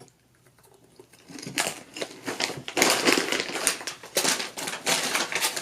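Dense, irregular crunching and crinkling of snacks being eaten and handled in their packaging, starting about a second in.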